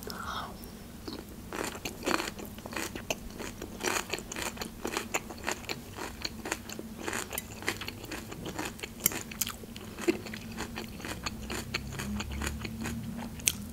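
A person chewing a mouthful of fresh vegetable salad, a rapid run of small crunches.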